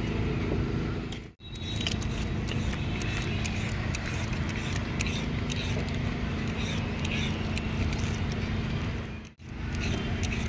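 Outdoor street ambience: a steady traffic rumble with quick, irregular scraping and clicking over it. The sound drops out briefly twice, about a second in and near the end.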